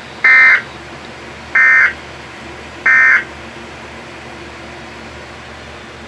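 Three short buzzy digital data bursts from a weather radio's speaker, about a second and a bit apart, with a low hiss between them. These are the SAME end-of-message code bursts that close a Weatheradio Canada alert broadcast.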